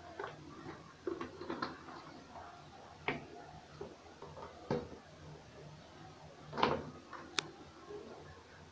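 Scattered knocks and clatters of metal kitchenware being handled: an aluminium pressure cooker pot, a spoon and a steel bowl. The loudest is a clatter about six and a half seconds in, followed at once by a single sharp, ringing metallic click.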